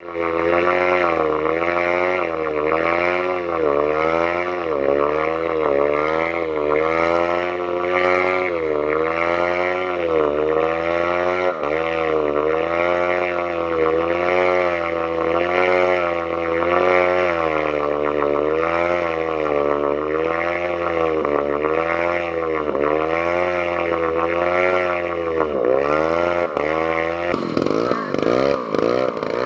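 Engine running unevenly, its speed surging up and down over and over, with a deeper dip and recovery near the end: it is almost coughing out after getting water in it.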